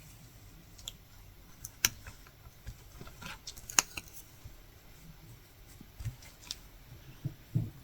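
Faint clicks and soft rustles of a latch hook tool and yarn being worked through rug canvas, with two sharper clicks about two and four seconds in.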